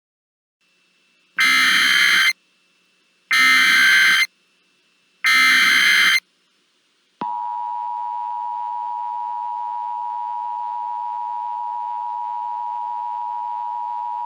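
Emergency Alert System alert opening: three short buzzing data bursts of the SAME header, each about a second long, then a steady two-tone attention signal that starts about seven seconds in and holds.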